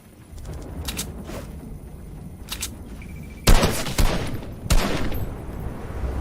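A few faint sharp clicks, then several loud gunshot-like bangs in quick succession starting about halfway in.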